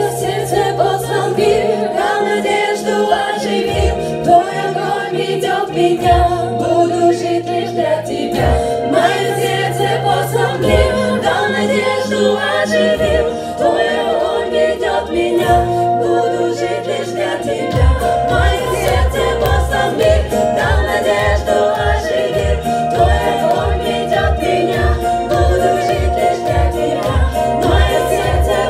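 Two women's voices singing a Russian worship song into microphones over keyboard accompaniment with held low bass notes. About two-thirds of the way in, a steady beat of about two strokes a second comes in.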